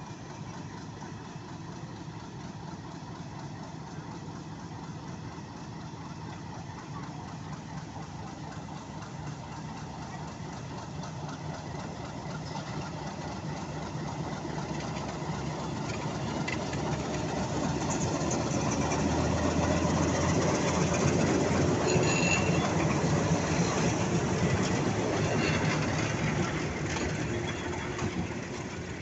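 Metre-gauge diesel locomotive hauling a commuter train, its engine running steadily. It grows louder from about halfway through, is loudest a little before the end, then eases off as it goes by.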